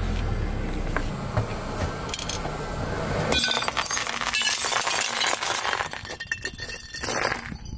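Car tyre rolling slowly onto hard-candy lollipops and crushing them: a low rumble, then from about three seconds in a burst of dense, glassy crunching and cracking that thins to scattered clicks near the end.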